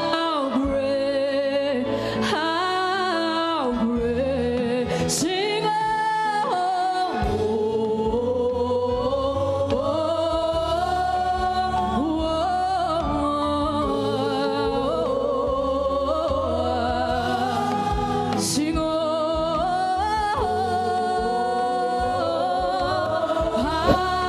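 Gospel singing with instrumental accompaniment: voices hold and bend long sung notes over a steady backing.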